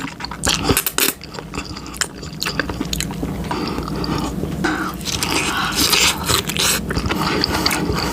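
A person chewing a big mouthful of food close to the microphone. Sharp mouth clicks come through the first few seconds, then denser, steadier chewing.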